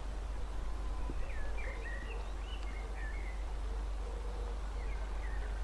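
Songbirds chirping in short high phrases, a cluster of them a second or two in and more near the end, over a steady low rumble.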